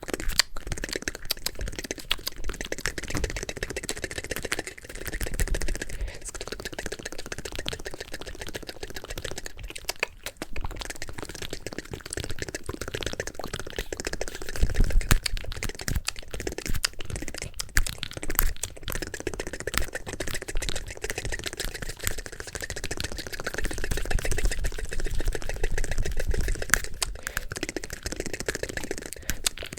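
Fast, aggressive ASMR mouth sounds: a dense, rapid stream of wet clicks and pops that runs without a break.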